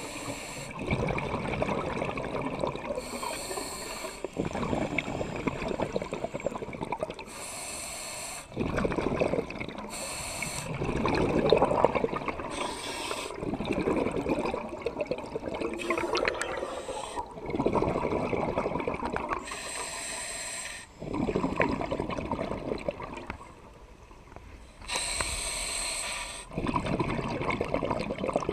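Scuba diver breathing through a regulator underwater: a short hiss of inhalation every three to five seconds, each followed by the bubbling of exhaled air.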